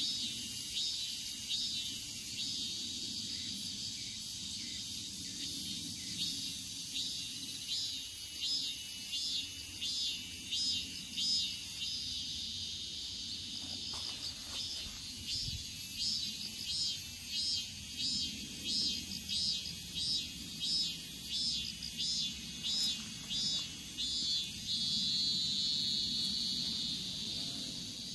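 Insects chirping in grass, a regular chirp about twice a second over a steady high trill. The chirping breaks off for a few seconds about halfway through and then resumes.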